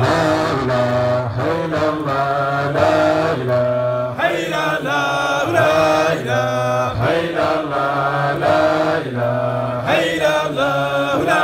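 A man's voice chanting a devotional Islamic song through a handheld microphone, amplified, in long held melodic phrases with short breaths between them.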